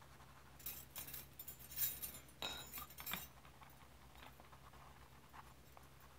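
Small hard objects clinking and rattling in a quick cluster of light clicks for about two and a half seconds, then a few faint ticks.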